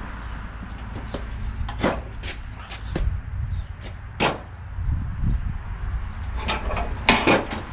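Scattered clicks and knocks from mower deck spindle parts and hardware being handled, about a dozen sharp taps spread unevenly, with a cluster of louder ones near the end. A low steady hum runs underneath.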